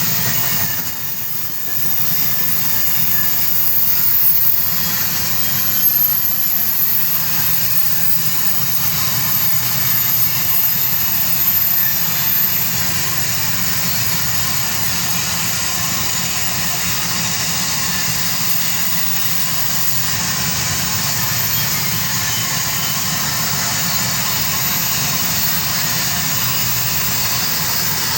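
Iron ore train running steadily, a continuous rumble and hiss with no breaks.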